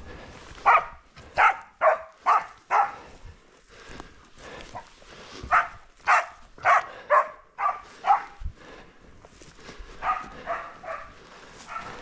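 Wachtelhund barking in quick runs, about two barks a second: five loud barks, a pause, six more, then fainter barks near the end.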